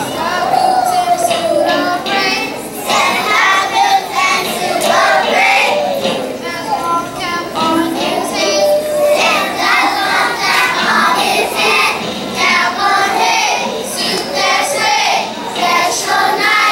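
A group of children singing a Christmas song together, with musical accompaniment.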